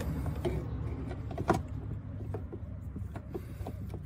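A few scattered light clicks and knocks as a clutch master cylinder is handled and worked into its mounting, over a steady low rumble.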